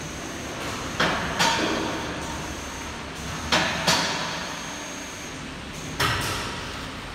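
Three pairs of sharp metal clanks a few seconds apart, each ringing briefly, from steel parts of a frame-straightening bench being handled or knocked into place, over a steady workshop hiss.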